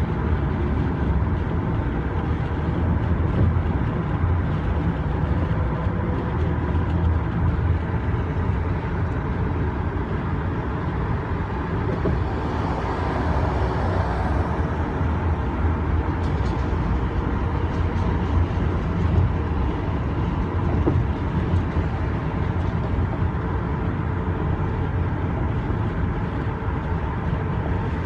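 Steady low rumble of engine and road noise heard from inside a taxi cab as it drives.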